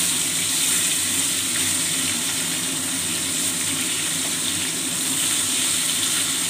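Parshe (gold-spot mullet) shallow-frying in hot mustard oil in a kadai, with a steady, even sizzle as the fish are turned over with a spatula.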